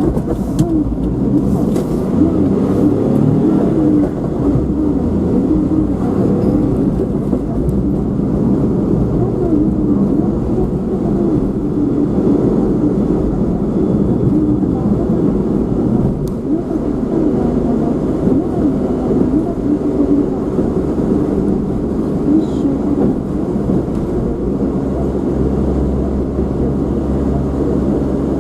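A car driving, with steady engine and road noise.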